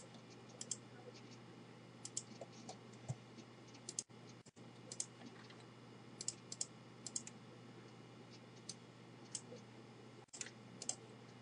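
Faint computer mouse clicks, irregular and sometimes in quick pairs, over a low steady hum.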